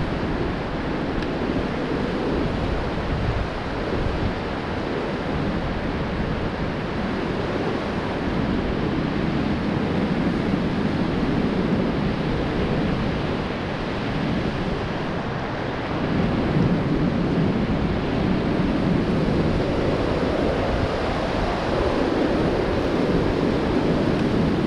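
Steady rush of whitewater from river rapids, with wind buffeting the microphone in a low rumble; it grows a little louder about two-thirds of the way through.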